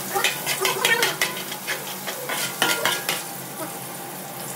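Sliced onions sizzling in hot oil in a large aluminium pan, while a metal spatula scrapes and clicks against the pan bottom in two bouts of stirring, the second ending about three seconds in.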